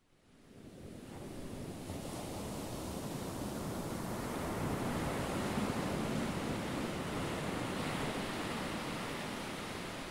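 Steady rushing of water like ocean surf, with no distinct tones or impacts. It fades in over the first second or two and begins fading out near the end.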